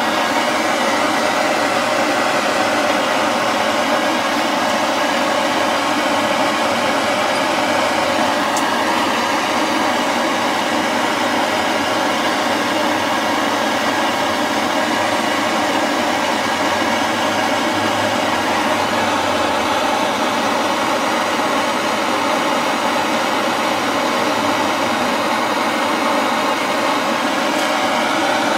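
Handheld gas blowtorch burning with a steady, even hiss.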